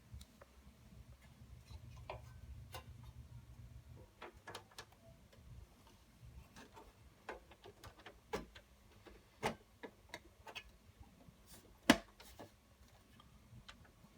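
Scattered light clicks and taps of parts being handled inside an HP Compaq 8000 Elite desktop case, with a sharper click about twelve seconds in.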